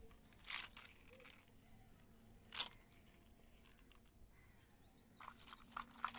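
Small plastic toy cars and building blocks being handled and knocked together: light plastic clicks and rattles, the sharpest single click about two and a half seconds in, and a run of quick clicks near the end.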